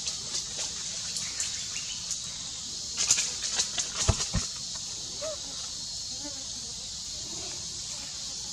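Steady, high-pitched insect chorus in forest, with a cluster of clicks and rustles and two low thumps about three to four and a half seconds in, then a few faint short squeaks.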